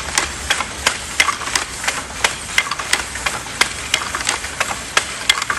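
Wooden handlooms clacking: a steady run of sharp wooden clicks, about three a second and not quite even, over a steady hiss.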